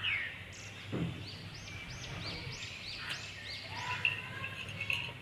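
A bird calling in a quick run of repeated high, arched notes, about three a second, stopping about four seconds in. There is a single knock about a second in.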